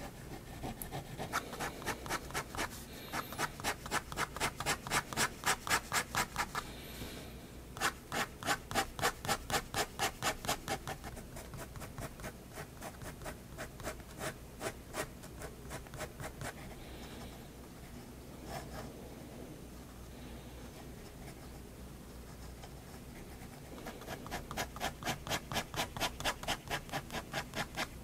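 Staedtler 0.3 mm pigment liner scratching across sketchbook paper in quick back-and-forth hatching strokes, about four a second. There are two loud, even runs of hatching, one near the start and one near the end, with softer, scattered strokes between them.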